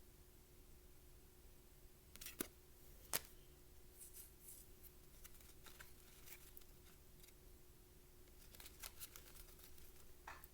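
Near silence: room tone with a faint steady hum, two faint clicks about two and three seconds in, and light rustling afterwards.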